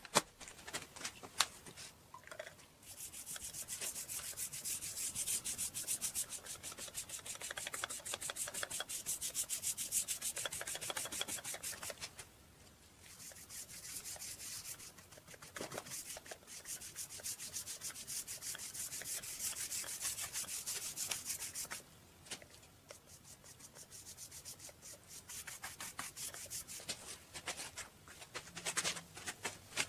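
Paintbrush bristles scrubbing stain onto a wooden board: a scratchy rubbing that runs in long spells, broken by short pauses about 12 and 22 seconds in.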